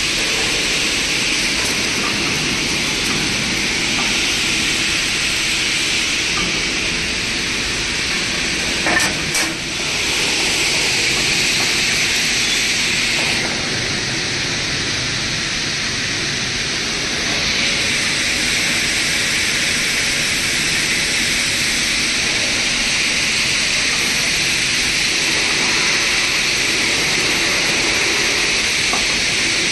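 CNC fiber laser tube cutting machine running, a steady high hiss like a gas jet, typical of the cutting head's assist gas while it cuts. There are a couple of short clicks about nine seconds in, and the hiss eases slightly for a few seconds midway.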